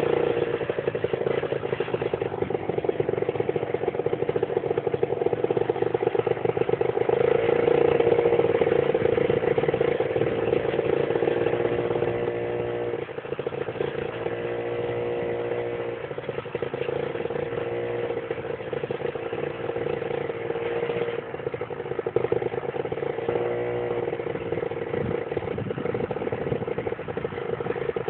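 Motorcycle engine running at high revs. Its pitch wavers up and down in several short throttle swings about halfway through and again near the end.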